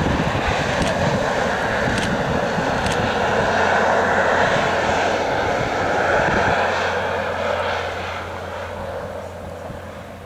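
ADtranz DE2000 diesel-electric locomotive passing with an InterCity train, its engine a loud steady drone that fades away after about eight seconds, leaving the lower rumble of the coaches rolling by. A few sharp clicks in the first three seconds.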